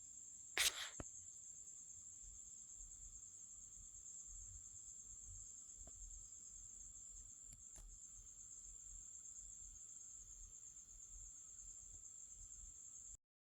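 Cricket trilling, one steady high pulsing note, over a faint low rumble. A short knock sounds under a second in, and everything cuts off abruptly near the end.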